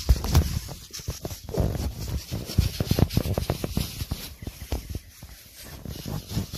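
Irregular knocks, scrapes and rubbing: handling noise of a hand-held camera and footsteps in rubber boots on soil among plants.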